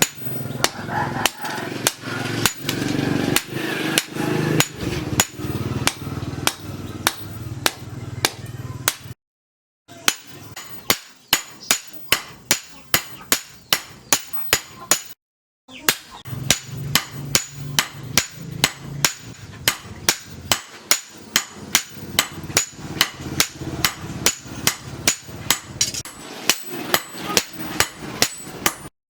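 Hand hammer striking steel on an anvil in a steady rhythm of sharp ringing blows, about two to three a second. The blows stop dead twice for a moment.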